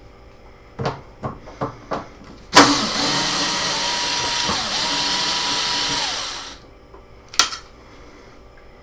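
Cordless power drill/driver running for about four seconds as it backs out a screw from the washing machine's tub assembly; its whine sags briefly midway, then it stops. A few short clicks and knocks come before it, and one knock follows.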